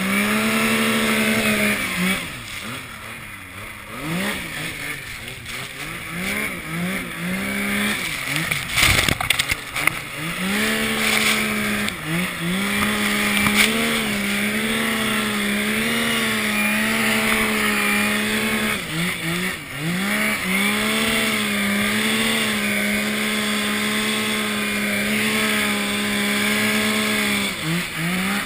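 Yamaha Nytro snowmobile's four-stroke three-cylinder engine running hard through deep powder, its pitch rising and falling with the throttle and dropping off briefly several times as the rider lets off. A cluster of knocks comes about nine seconds in.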